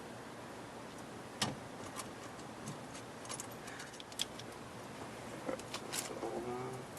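Scattered light clicks and metallic clinks of small parts and hand tools being handled during a steering-wheel swap, with sharper clicks about a second and a half in, around four seconds and around six seconds.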